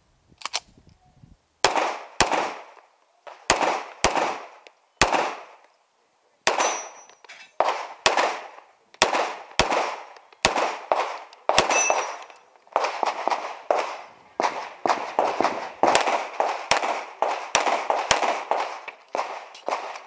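Pistol shots fired in pairs about half a second apart, each shot trailing off quickly. From about twelve seconds in they come as a faster, denser string.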